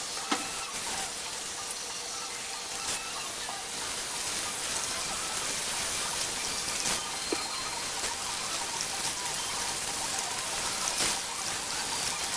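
Water spraying from a salon shampoo-bowl hand sprayer onto wet hair and into the basin: a steady rushing hiss with a few faint clicks, as cold water rinses conditioner out of freshly coloured hair.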